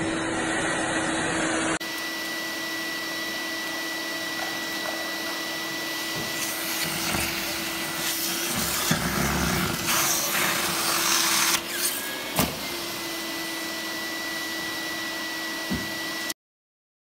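Vacuum aspirator of a semi-automatic fish-gutting machine running with a steady whine as the suction gutting knife draws blood, innards and gills out of mackerel, beside a running tap. A louder rushing hiss comes and goes through the middle, with a sharp click near the end, and the sound cuts off suddenly just before the end.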